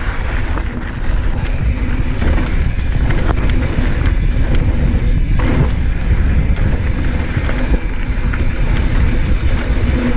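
Polygon Square One mountain bike ridden fast down a rough dirt and gravel trail: tyres rolling over dirt and rock with frequent clicks and clacks from the bike, under heavy wind rumble on the camera microphone.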